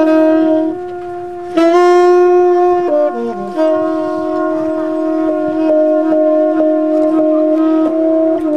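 Trumpet and saxophone playing jazz together, mostly long held notes in two voices. A loud new attack comes after about a second and a half, and one voice drops through a short run of falling notes around three seconds in before both hold again.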